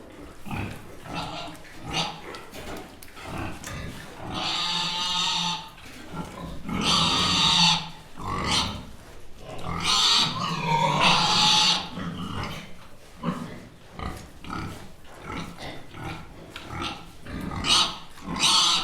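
Pig grunting in short bursts, broken by several longer, louder calls, the loudest around the middle and one more near the end.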